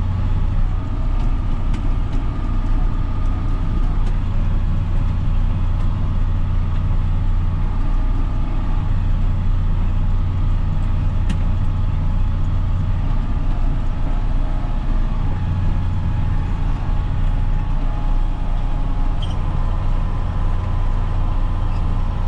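John Deere tractor's diesel engine running steadily at even revs, lightly loaded as it drives a lime spreader through the economy 540E PTO setting.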